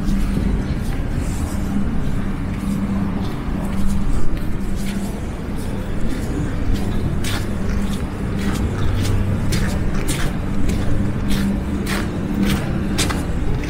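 Road vehicle engine running with a steady low hum, and from about halfway in, footsteps crunching in snow at a walking pace of about two steps a second.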